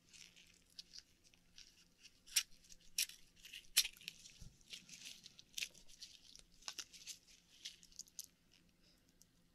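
Faint wet crackling and squishing as fingers pick through opened Akoya oyster meat to find pearls, with several sharp clicks.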